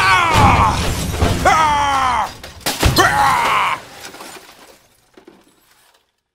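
A voice crying out three times, each cry about a second long and falling in pitch, over crash noise with a few sharp impacts. The crash noise fades out after about four seconds.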